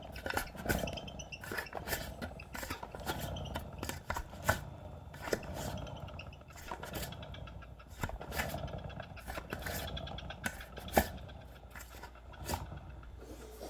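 Elite Turbo Roteo direct-drive bike trainer turning, with a string of unevenly spaced thumps and knocks over a faint steady hum: the noise the owner fears is a sign of impending bearing failure.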